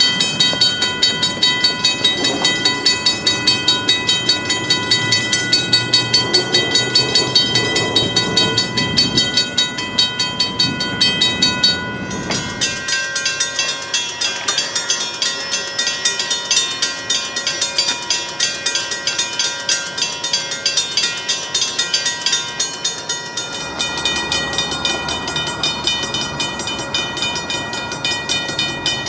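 Safetran mechanical railroad crossing bells ringing, a clapper striking the gong in rapid, even repeats. A bell with a different set of tones takes over abruptly about 12 seconds in, and the sound changes again near the end.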